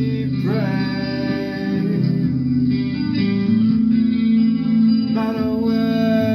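Guitar music, with pitched notes held over a steady lower accompaniment and a few notes bending in pitch near the start and about five seconds in.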